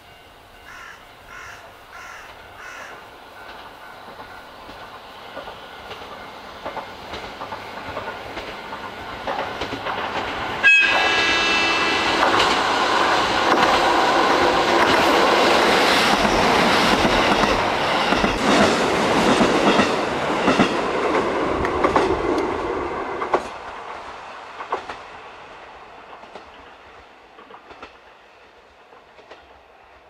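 Diesel express train approaching, a sudden loud horn blast about ten seconds in, then passing close for about twelve seconds with engine noise and wheels clattering over the rails. The sound drops off sharply as the last car goes by, then fades away.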